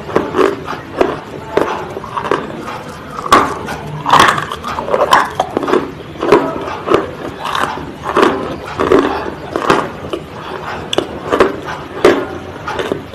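Repeated crisp crunching of something brittle, sharp crackling crunches coming irregularly about once or twice a second.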